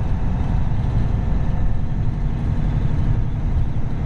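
Semi truck driving at road speed, heard from inside the cab: a steady low drone of diesel engine and road noise.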